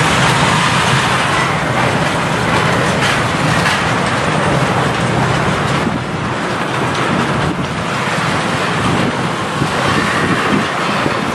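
Freight train of eight-axle tank cars rolling past on steel wheels and rails, a loud, steady rumble with a few faint wheel knocks.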